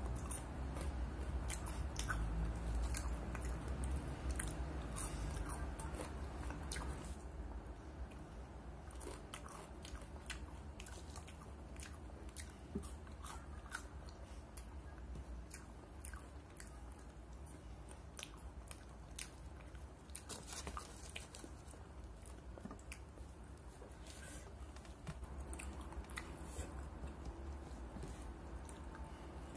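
A person chewing and biting French fries, with many small crunches and mouth clicks, thicker in the first several seconds.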